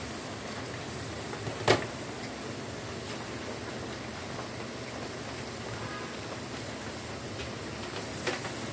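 Steak sizzling steadily in a hot grill pan, a continuous crackling hiss. Two sharp clicks of metal tongs cut through it, about two seconds in and again near the end.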